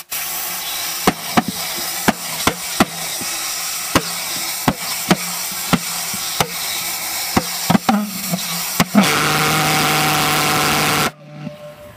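Pulsejet engine being started with compressed air blown into its intake: a loud steady hiss with irregular sharp pops as the fuel fires in the combustion chamber. About nine seconds in it builds to a louder steady buzz, then cuts off suddenly near the end.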